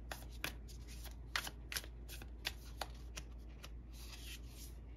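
A deck of tarot cards being shuffled by hand: an irregular run of soft snaps and slaps as the cards fall together, with a brief longer rustle about four seconds in.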